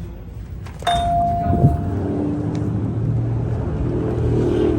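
A single electronic chime rings out and fades, then a car engine starts and runs steadily.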